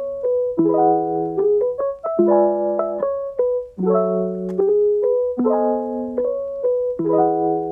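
Background music: a light piano tune playing chords in short repeating phrases.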